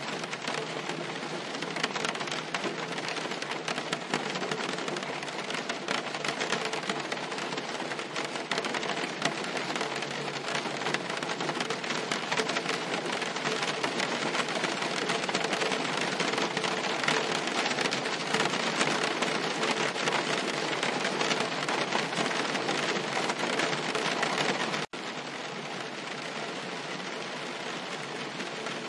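Rain falling on a car's roof and windscreen: a dense, steady patter of drops. About 25 seconds in it breaks off for an instant and carries on slightly quieter.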